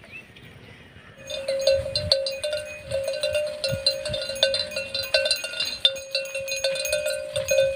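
Bells on a passing herd of goats clanking and jingling irregularly, starting about a second in after a quiet moment.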